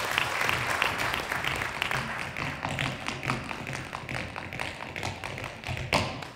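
Tap shoes striking a wooden stage floor in quick, uneven rhythms during an unaccompanied improvised tap solo, over applause that dies away in the first seconds. One louder stamp comes near the end.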